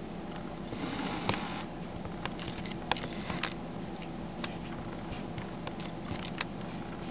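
Handling noise from a handheld camera: a brief soft rustle about a second in, then scattered light clicks and ticks over a steady low room hum.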